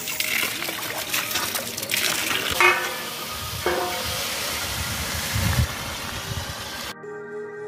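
Splashing water as leafy greens are rinsed by hand in a plastic basin, followed by rough noise with two short pitched sounds. It cuts off suddenly near the end, and soft music begins.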